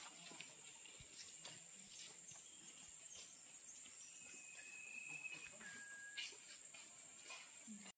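Steady high-pitched drone of insects, with two short, thin whistled notes a little past the middle.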